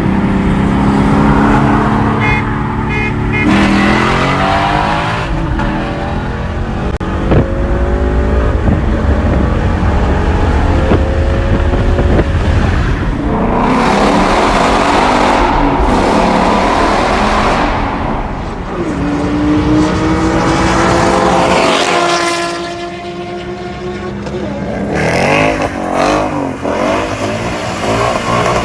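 Ford Mustang 5.0 V8 with an X-pipe exhaust revving hard under full-throttle acceleration. The engine note climbs, falls away at the gear changes, then climbs again.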